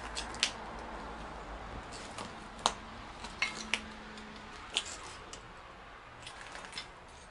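Footsteps over fire debris and rubble: about ten irregular, sharp clinks and crunches of hard fragments underfoot.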